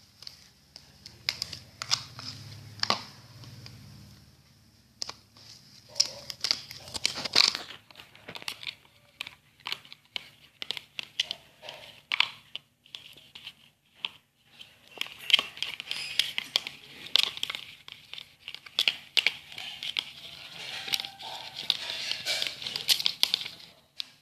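Slime being squished and stretched by hand: irregular sticky crackling and popping clicks, pausing briefly twice.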